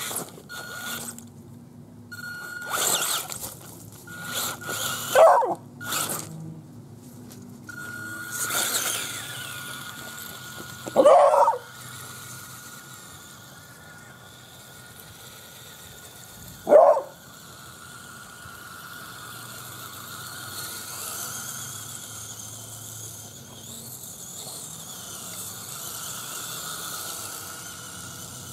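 A beagle barks three single loud barks, spaced about six seconds apart. Between the barks a remote-control crawler truck's electric drive gives a thin, steady high whine, with bursts of rustling over mulch early on.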